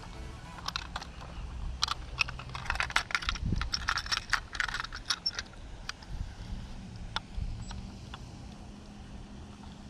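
A flurry of small sharp clicks and rattles from handling a plastic handheld digital fish scale and working its hook into a bass's gill. The clicks come thick and fast in the first half, then thin out to a few scattered ones.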